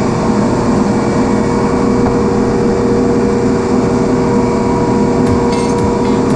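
Loud, steady drone of running industrial machinery with a constant hum, with a brief light metallic clatter about five and a half seconds in.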